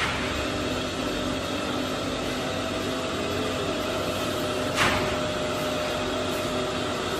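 Steady running noise of pipe-factory machinery, with one short hiss about five seconds in.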